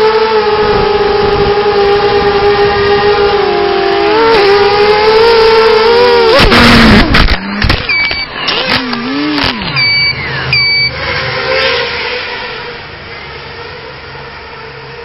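Coptergiest CGX 250 quadcopter's electric motors and propellers whining steadily in flight, the pitch shifting about four seconds in. About six and a half seconds in comes a loud crash, after which the motors stutter and wind down with a few short high beeps, and the sound fades away.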